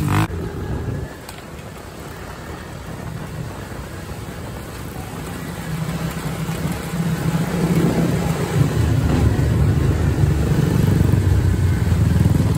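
Off-road vehicle engine running. A rev dies down about a second in, then the engine grows steadily louder over the next several seconds until it runs strongly.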